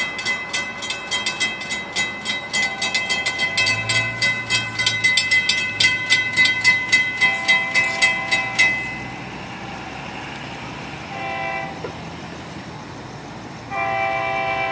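Grade-crossing warning bell ringing rapidly, about four strikes a second, while the crossing gates come down; it stops about nine seconds in. Then the approaching Florida East Coast Railway locomotive's air horn gives a short blast, and near the end begins a long blast, the horn signal for the crossing.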